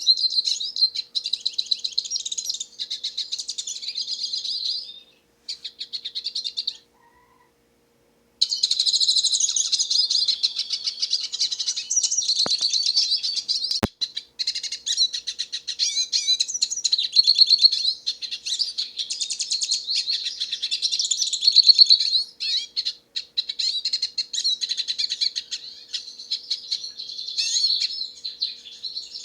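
Hooded siskin singing: a long, fast twittering and warbling song. It breaks off for about a second and a half some seven seconds in, then resumes, with one sharp click about a third of the way through.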